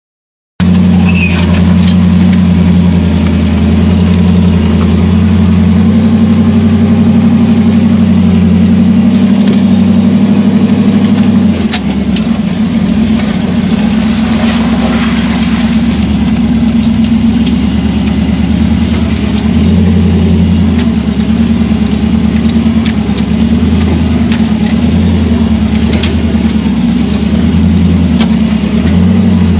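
Jeep CJ's engine running steadily under light load while crawling along a trail, heard from the driver's seat. About 12 seconds in the engine note drops, then rises and falls with the throttle, with scattered knocks and scrapes over it.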